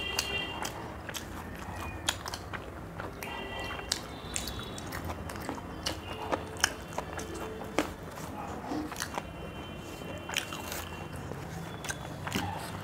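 Close-up eating sounds: two people chewing and biting spicy chicken and rice eaten by hand, with many small wet mouth clicks and smacks.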